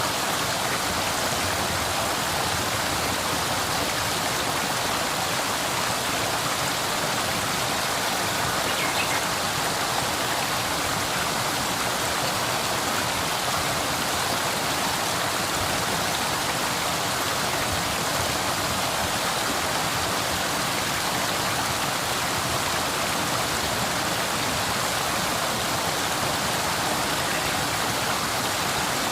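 River water flowing, a steady rushing and burbling.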